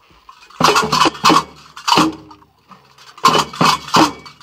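A run of sharp metallic clanks, each ringing briefly: three in quick succession, a single one, then three more.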